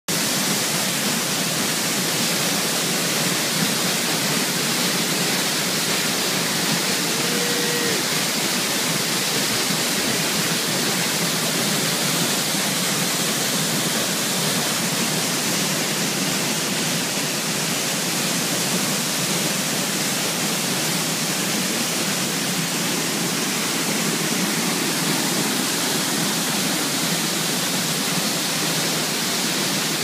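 Waterfall plunging into a rock pool: a steady rush of falling water.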